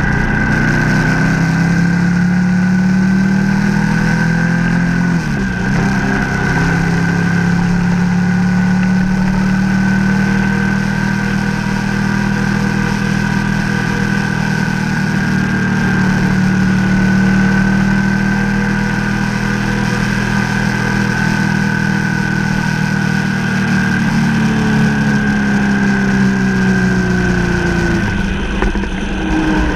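Ducati Multistrada 1200S's V-twin engine running under way at a steady cruise. The revs dip briefly about five seconds in and ease off near the end.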